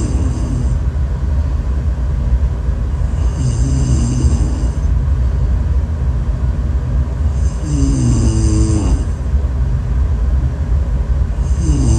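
Person snoring: a constant low rumble, with a pitched snore that bends in pitch about every four seconds, in time with the breaths.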